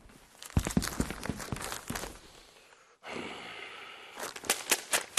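Scattered footsteps and light knocks at first. About three seconds in they cut off sharply, giving way to a low steady hiss with a few more clicks near the end.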